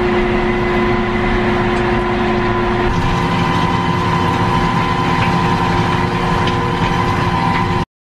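John Deere tractor engine running steadily under load while pulling a Pottinger cultivator through the soil, with a steady whine over it. The sound changes about three seconds in and cuts off abruptly just before the end.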